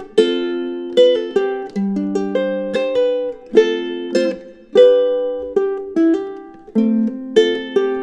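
Low-G tuned ukulele played fingerstyle, alternating F and G chords with picked melody notes, hammer-ons and pull-offs, and muted percussive strokes.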